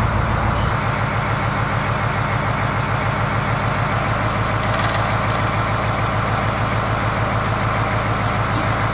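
International D190 eight-cylinder diesel engine of a 1987 International S1700 semi truck running steadily, with an even, rapid beat.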